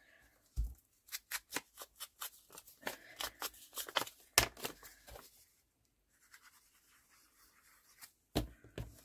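Scissors snipping through scrap paper in quick, even cuts, about four or five snips a second for several seconds, followed by a faint rustle of paper and two sharp taps near the end.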